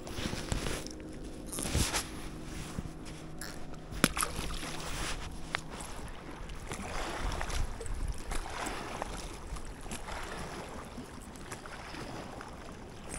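Lakeshore water sloshing and wind rumbling on the microphone, with a few sharp clicks, the loudest about four seconds in, and a faint steady drone that fades out about halfway through.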